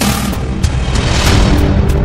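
Loud soundtrack music with a heavy bass; a booming hit lands at the start and rings out over about a second and a half.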